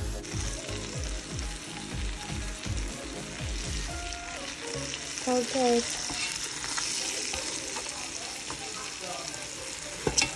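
Salt and pepper shrimp sizzling and frying in a stainless-steel pot while being stirred, a steady crackling hiss. A few sharp clinks of the utensil against the pot near the end.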